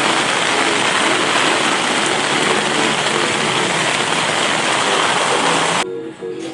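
Heavy, steady rain falling, which cuts off abruptly near the end, leaving soft music.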